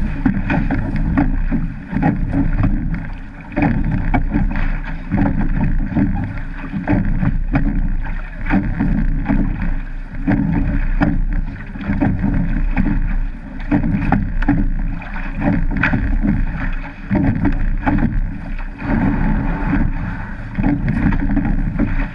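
Wind buffeting a deck-mounted action camera and water rushing along the hull of a rowed surf boat, muffled, swelling and dipping every few seconds, with scattered light knocks.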